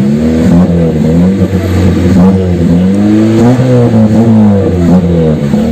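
Toyota Starlet's carburetted four-cylinder engine being revved up and down repeatedly, its pitch rising and falling several times. The engine is still being set up and the owner finds it a bit sluggish, which he thinks may be the carburettor.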